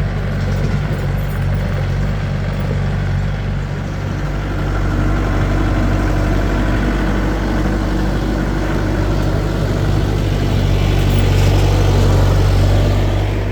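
Skid steer's engine running steadily at idle, growing a little louder in the second half.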